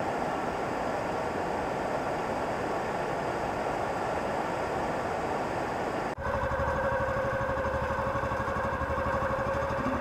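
A steady rush of river water flowing over rocks. About six seconds in it cuts to a boat engine running steadily, with an even pitched hum over a rapid low throb.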